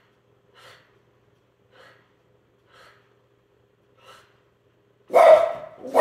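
A dog breathing in short, faint huffs about once a second, then letting out a loud bark about five seconds in.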